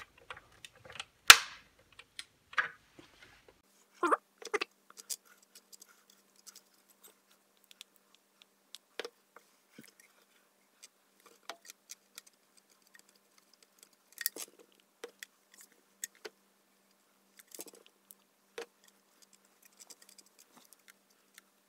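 Scattered clicks and knocks of a stand mixer's metal gearbox housing and tools being handled on a workbench during a repair, the loudest a sharp knock about a second in, with a faint low hum underneath.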